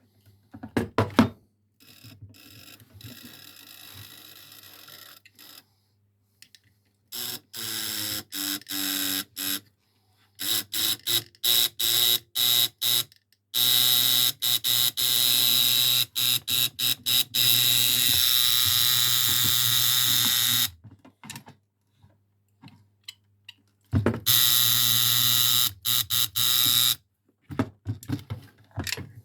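Electromechanical telephone buzzer of a 1965 Intercom U43 set, run on 6 V DC, buzzing in repeated bursts while it is being adjusted: some short, one lasting about seven seconds, its tone and strength changing from burst to burst. A few sharp clicks come about a second in.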